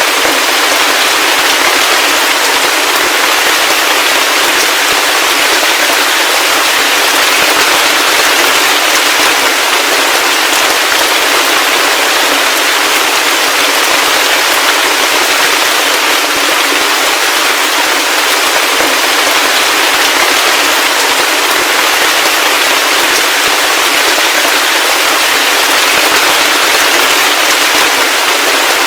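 Heavy rain falling steadily: a dense, even hiss of countless close drop impacts, thin in the bass with no low rumble.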